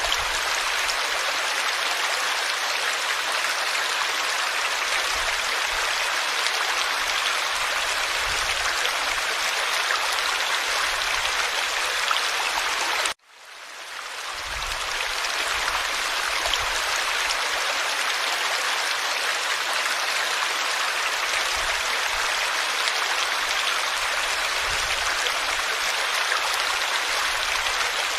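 Forest stream flowing with a steady babbling rush. About halfway through it cuts out for a moment and fades back in.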